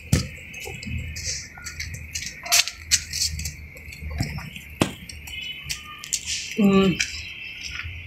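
A steady high insect buzz, with scattered light clicks and taps and a brief voice about two-thirds of the way in.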